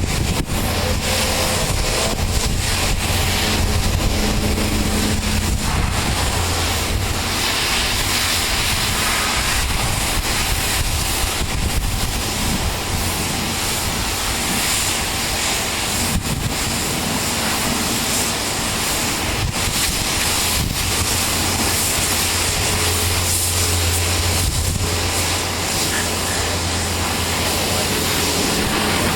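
Pressure washer spraying: a steady hiss of the water jet over the constant low drone of the washer's motor and pump.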